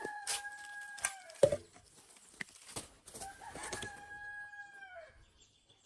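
A rooster crowing twice, each crow a long held call that drops off at the end; the second starts about three seconds in. Several sharp knocks fall in between, the loudest about a second and a half in.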